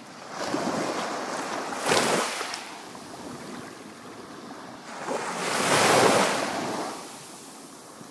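Sea waves breaking on a beach: two swells of surf, each building and washing out over a couple of seconds. The first has a sharper splash about two seconds in.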